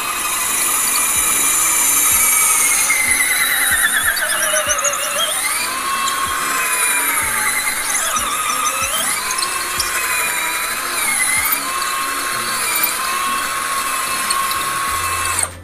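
INGCO CDLI1211 12V cordless drill boring a hole into a wall. Its motor whines steadily, the pitch sagging about four seconds in and then wavering as the bit loads and frees in the wall, and it stops right at the end.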